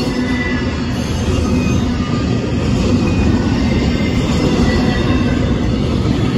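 Union Pacific intermodal train's double-stack container well cars rolling past, a steady loud rumble and rattle of steel wheels on the rails.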